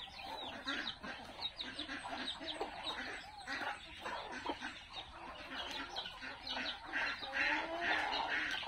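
A flock of chickens clucking, many short calls overlapping. About seven seconds in, a run of louder rasping strokes joins them.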